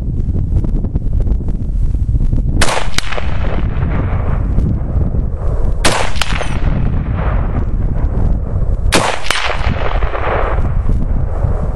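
SVT-40 semi-automatic rifle firing 7.62x54R, three shots about three seconds apart, each followed a fraction of a second later by a second sharp crack and a fading echo. Wind buffets the microphone throughout.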